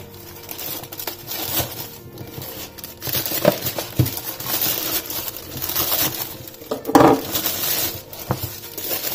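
Plastic courier mailer bag crinkling and tearing as it is slit open with a knife and pulled off a boxed item, in irregular rustles with a loud crinkle about seven seconds in.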